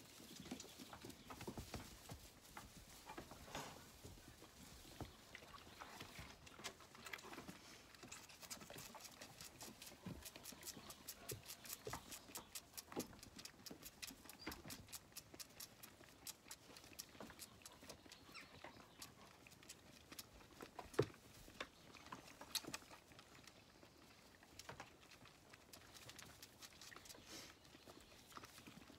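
Faint rapid clicking and sucking of Zwartbles lambs feeding from bottle teats, with light rustling and patter in the hay. The clicks come thickest in the middle, and there is one sharper knock about twenty seconds in.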